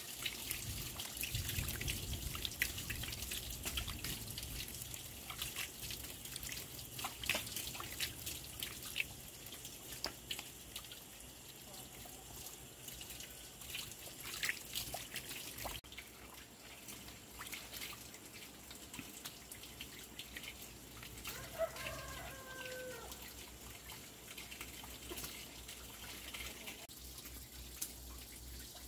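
Water trickling and dripping, with many scattered light knocks and clinks. A short bird call comes late on.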